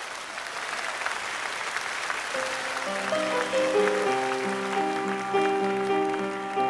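Audience applause fading out, and about two seconds in a Steinway grand piano begins a slow solo introduction of single notes and chords.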